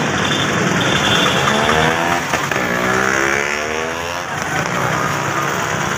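A motor vehicle's engine passing close by on a street, its pitch dropping and then climbing again over a few seconds, over a steady background of traffic and crowd noise.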